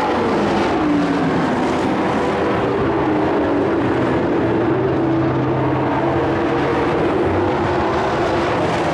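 Several dirt-track race trucks' engines running together at racing speed, their pitch sliding down and up as they pass.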